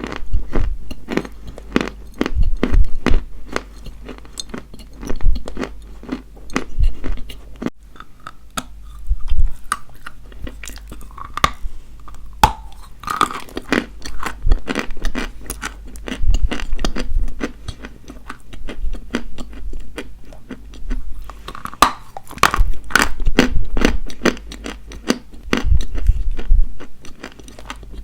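Dry white chalk being bitten and chewed, with a dense run of crisp, irregular crunches, quieter for a few seconds about a third of the way through.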